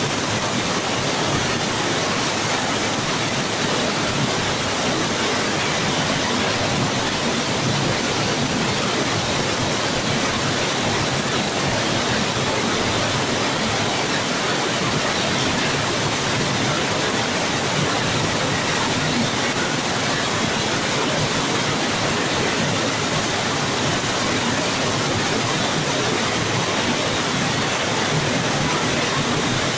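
Heavy downpour of rain: a steady, even rush with no let-up.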